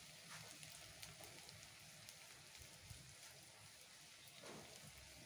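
Faint crackle of leftover cooking oil still sizzling in a wok after the gas burner has been switched off, the oil cooling on its residual heat.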